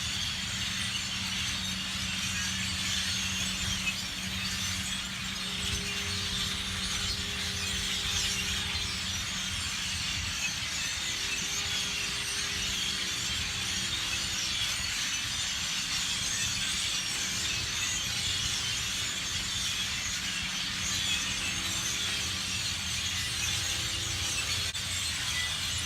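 A huge flock of birds chattering and calling all at once as they settle to roost in bamboo, a dense unbroken din of high calls, with a steady low hum underneath.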